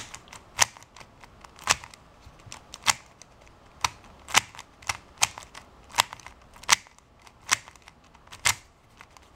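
Stickerless 3x3 plastic speed cube turned by hand, its layers clicking sharply into place about once a second as it is put through corner-cutting turns.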